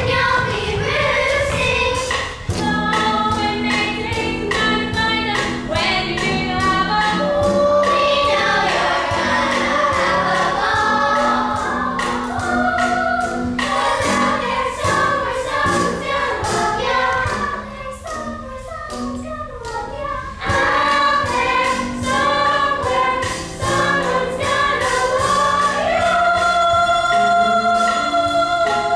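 A chorus singing a song from a stage musical over instrumental accompaniment, with long held notes.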